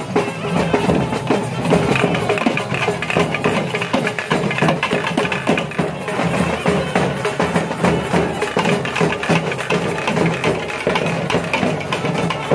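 Music driven by continuous rhythmic drumming and percussion, many strokes a second.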